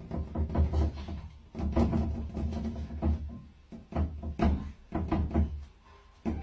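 Music with bass and percussion, playing in short phrases that break off a few times.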